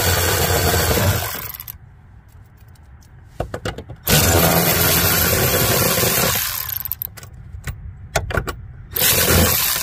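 Cordless electric ratchet with a 10 mm socket on an extension, spinning out the door-handle frame screws in runs of about two seconds: one ending about a second in, one in the middle and another starting near the end, with small clicks between.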